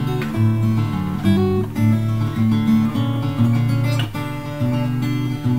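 Background music: acoustic guitar playing, plucked and strummed.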